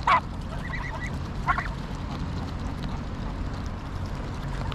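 Greylag geese giving short honking calls while feeding: a loud one at the start, then two softer ones around a second and a half in, over a steady low rumble.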